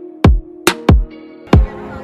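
Electronic background music with a heavy, booming kick-drum beat over held notes.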